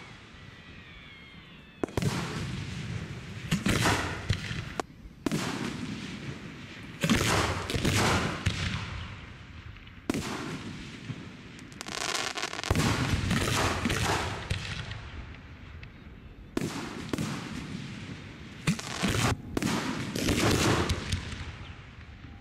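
Aerial firework shells bursting one after another at uneven intervals, a dozen or so sharp bangs, each trailing off in a long rumbling echo.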